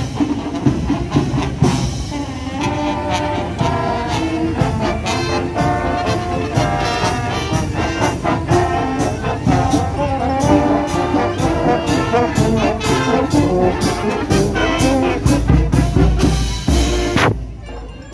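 Brass marching band playing a march: trumpets and trombones carry the tune over baritone horns and a steady beat on the bass drum. The music briefly drops away shortly before the end.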